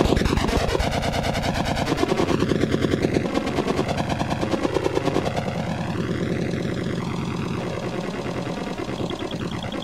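Slowed-down sound of a .500 Magnum shot and its impact, stretched into a rapid throbbing rumble that slowly fades.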